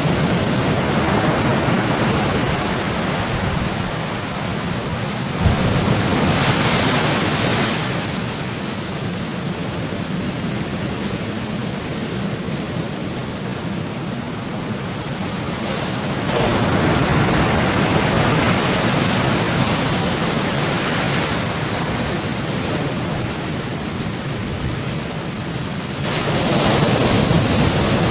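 Rough sea waves washing and breaking, with wind, swelling louder every several seconds as bigger waves come through. There is one brief knock about five seconds in.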